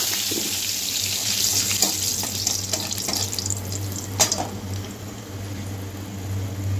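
Fenugreek seeds sizzling in hot oil in a kadhai, the hiss growing fainter. A spatula clicks against the pan a few times, most sharply twice.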